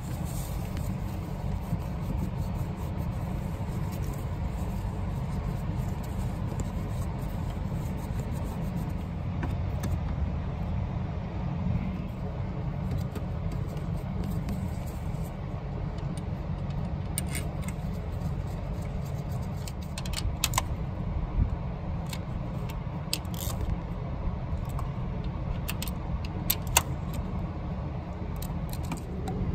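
Irregular metallic clicks and clinks of a socket on an extension bar meeting the solenoid assembly's bolts as they are tightened, mostly in the second half, over a steady low rumble.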